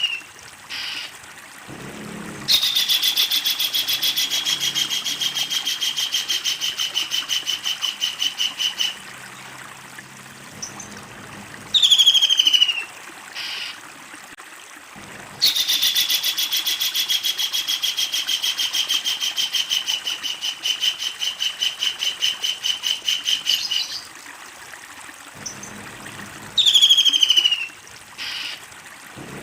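Kingfisher giving its long, rapid rattling cackle: a fast series of sharp notes that sags slightly in pitch, held for several seconds, twice. Short downward-sliding calls come between the two rattles.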